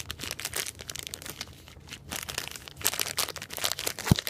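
Clear plastic zip-lock bag of small electronic parts crinkling as it is handled and shaken. A single thump near the end.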